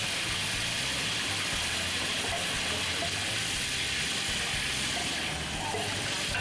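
Hot oil sizzling steadily with spices frying in a large aluminium pot over a wood fire, over a low rumble of street noise.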